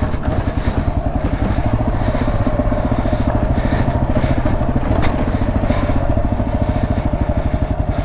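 Kawasaki KLR650's single-cylinder four-stroke engine running steadily as the motorcycle is ridden along a dirt trail, with an even, regular pulse.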